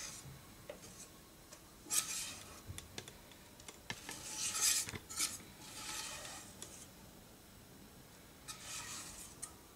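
Wire whisk scraping cake batter out of a mixing bowl into a ring cake pan, in several short scrapes a second or two apart, with a few light clicks of the utensil against the bowl.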